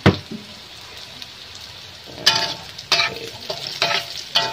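Garlic, shallots and chilli sizzling in a little oil in a metal wok as they brown. A metal spatula knocks against the wok once at the start, then scrapes and clanks against it four times in the second half, with a slight ring.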